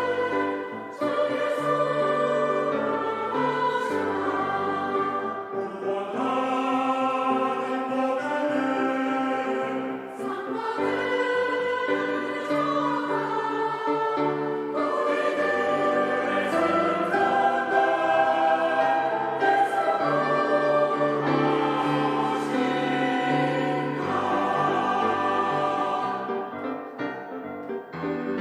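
Church choir singing a hymn in several voice parts with piano accompaniment.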